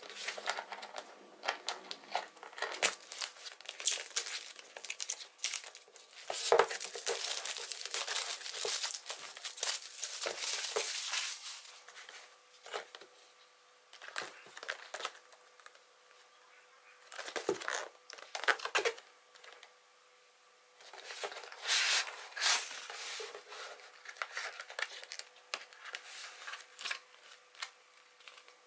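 Clear plastic shrink-wrap crinkling and tearing in bursts as hands peel it off a cardboard box, with quieter stretches of the box being handled in between.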